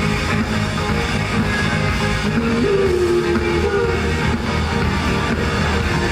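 Live rock band playing, guitar to the fore, with a melodic line that slides up and then holds, repeating about four seconds later.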